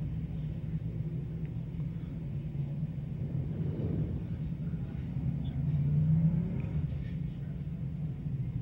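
A field of dirt-track sportsman modifieds with crate V8 engines rolling slowly in formation under caution, a steady low engine rumble that swells a little about four seconds in and again about six seconds in.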